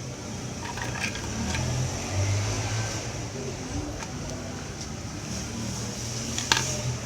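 Steady low rumble of background noise with a few light handling clicks, and one sharper click about six and a half seconds in.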